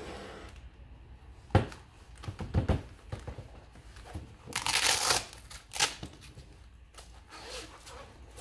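A gas blowtorch's hiss cuts off about half a second in. Then comes a sharp knock as the torch is set down, and the scorched fire-resistant document wallet is handled. A loud ripping sound lasting under a second, about five seconds in, comes as its closure is pulled open, with fabric rustling around it.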